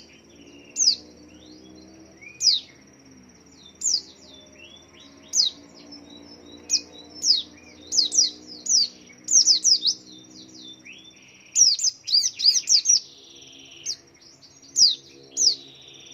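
White-eye (pleci) calling: sharp, high, down-slurred chirps, some single and some in quick clusters of three or four, at irregular intervals throughout. Calls like these are used to lure other white-eyes into calling along.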